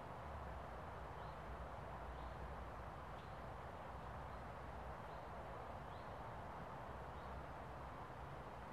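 Faint, short, high calls of northern goshawk nestlings begging at the nest, repeating roughly once a second over a steady background hiss and low rumble.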